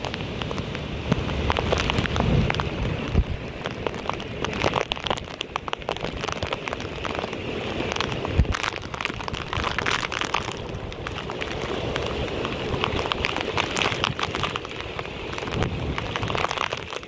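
Heavy cyclone rain pouring steadily, thick with the sharp patter of drops.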